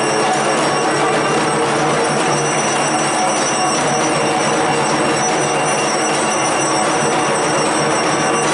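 Steady, dense din of ringing puja bells mixed with music, holding one level throughout.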